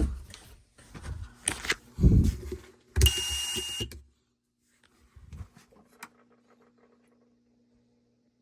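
Clicks and knocks of switches being worked, then a fire alarm horn on a homemade relay-built alarm panel sounds one high-pitched blast of about a second and cuts off abruptly, as the panel's coded mode is tried. Faint clicking and a low hum follow.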